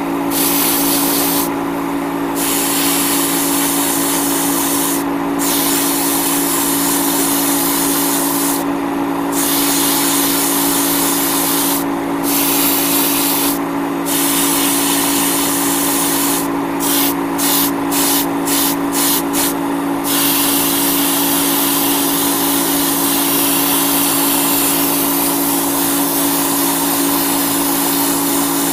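Iwata Neo airbrush hissing as it sprays paint, cut by short pauses when the trigger is let off, with a quick run of about six short on-off bursts two-thirds of the way through. A steady low hum runs underneath.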